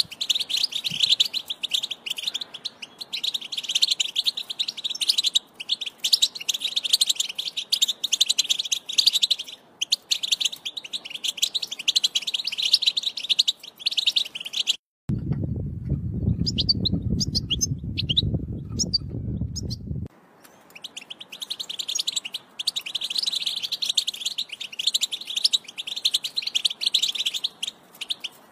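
European goldfinch song, a fast run of twittering chirps and trills of the Wedani song type. About halfway through it breaks off for roughly five seconds, leaving a loud low rumble with only faint chirps over it, then the twittering resumes.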